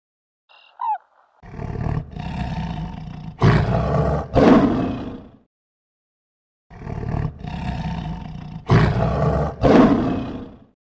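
Lion roaring: two roars about five seconds apart, each a rough building call that rises to two loud peaks and then trails off. A brief high call sounds just before the first.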